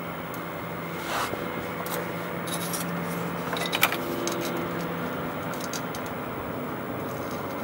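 Scattered scrapes and clicks of hands and a tool working at the grill's retaining screws from underneath, the sharpest clicks about four seconds in, over a steady low hum.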